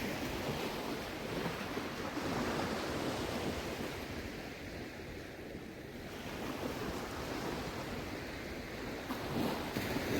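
Shallow seawater washing and sloshing, swelling and easing over a few seconds and quietest near the middle, with some wind rumbling on the microphone.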